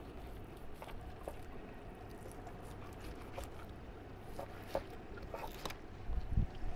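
Fillet knife cutting and scraping through snapper flesh on a plastic cutting surface: faint wet ticks and short scrapes over a low steady rumble. A dull low thump about six seconds in is the loudest sound.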